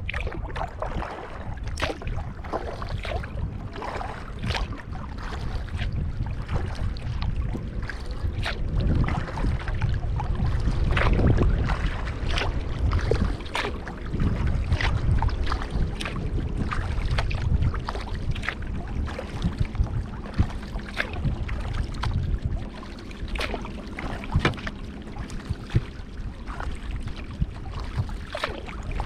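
Kayak on the water with paddle splashes and many irregular sharp taps, over a low rumble of wind buffeting the microphone that swells for a few seconds in the middle.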